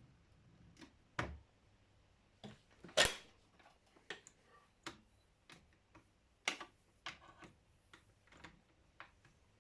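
Underwood Documentor electromechanical typewriter typing slowly: irregular sharp key strikes, about one or two a second, the loudest about three seconds in.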